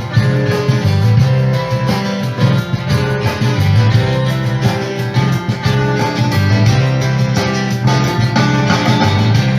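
Rock song in an instrumental passage with guitars and bass, no vocals, played back through a Panasonic SA-AK24 stereo's amplifier board under test.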